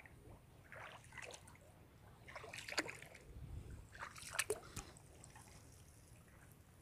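Faint splashing and trickling of shallow pond water in three short spells.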